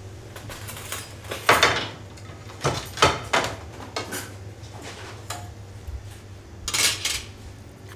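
Kitchen clatter: metal utensils and a small stainless saucepan clinking and scraping, about half a dozen separate knocks and scrapes spread through, over a steady low hum.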